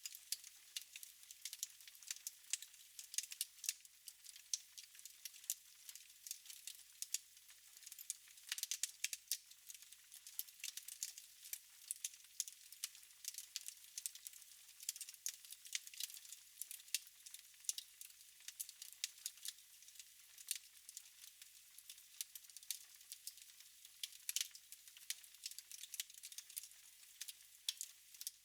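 Wood fire in a fireplace crackling, with many sharp irregular pops over a steady hiss.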